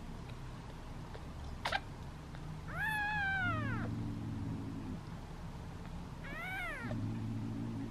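Newborn kitten meowing twice, each a short high call that rises and then falls in pitch.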